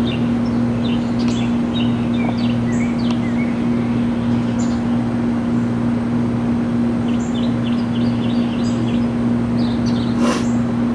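Small birds chirping in short, repeated calls over a steady low hum, with a brief hiss about ten seconds in.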